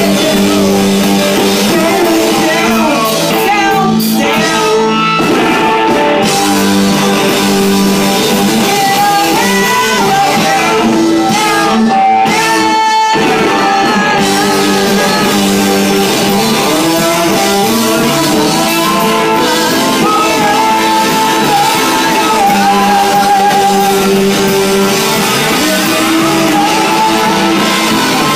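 A live band playing a song with a singer and guitar, loud and continuous, with a brief drop in the sound near the middle.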